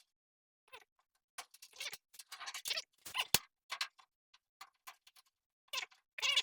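Small hard objects being handled, clicking, rattling and scraping irregularly with short pauses.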